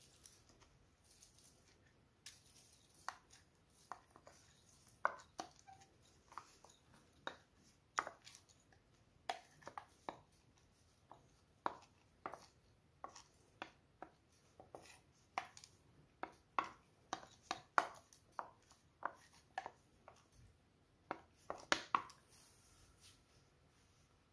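Wooden spatula knocking and scraping against a bowl as rice is pushed off it into a pot of milk: a long run of light, irregular taps, a few a second.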